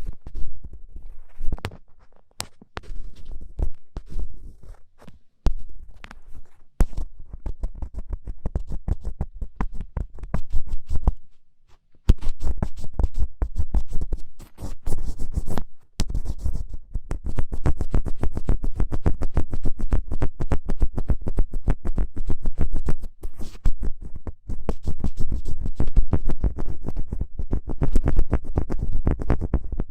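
ASMR ear-pick scratching: intense, rapid 'kari-kari' scraping strokes, sparse at first and then dense and continuous, with short pauses about twelve and sixteen seconds in.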